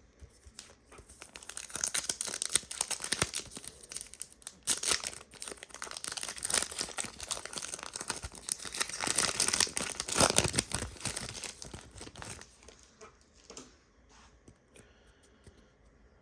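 A trading-card pack wrapper being torn open and crinkled by hand: dense crackling that starts about a second in and dies away near the end.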